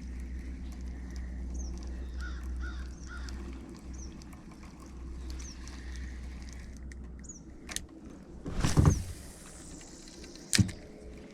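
Birds calling: short high chirps repeating every second or two, and three harsh calls in a row about two seconds in, over a low steady rumble. A loud bump about two-thirds of the way through and a sharp knock near the end are louder than the birds.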